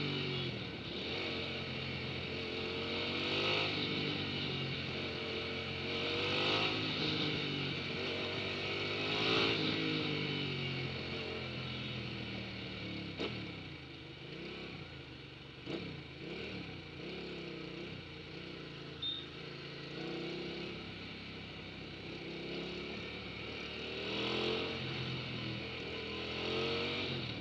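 Hyosung GT650R's V-twin engine running through city traffic, its revs climbing and dropping several times, easing to a lower, steadier note in the middle and rising again near the end. Two short sharp clicks midway.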